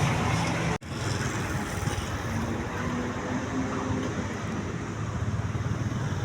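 Steady low rumble of bus engines and traffic, which cuts out for an instant a little under a second in.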